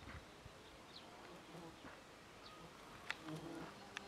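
Bees buzzing faintly around blossom, a low drone that comes and goes and is strongest about three seconds in, with a short sharp tick just before that.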